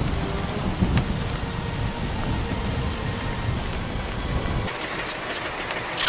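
Rain and thunderstorm sound effect: steady rain hiss under a low rumble of thunder that stops about three-quarters of the way through, leaving only the rain.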